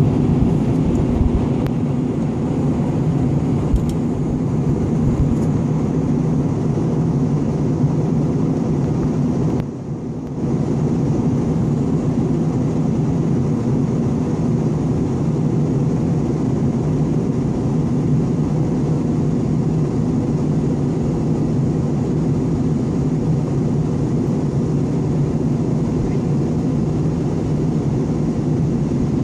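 Steady drone of a jet airliner's cabin in flight: engine and airflow noise with a low hum. It briefly drops and muffles for about a second roughly a third of the way through.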